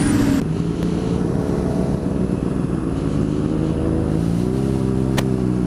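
Honda CBR600 motorcycle's inline-four engine running steadily at low revs while rolling slowly, the pitch lifting a little about four seconds in. A single sharp click comes near the end.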